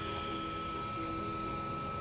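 Room tone: a steady hiss and hum with a thin, steady high tone running through it, and no other sound.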